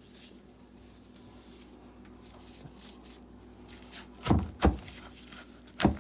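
Pestle pounding a Thai spice paste of ginger, shallots and chilli in a mortar. Quiet handling comes first, then two heavy strikes about four seconds in and another near the end, starting a steady pounding rhythm.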